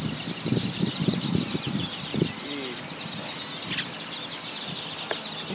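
A large flock of birds chirping and squawking all at once, a dense chatter of many overlapping calls, with a low rumble during the first two seconds or so.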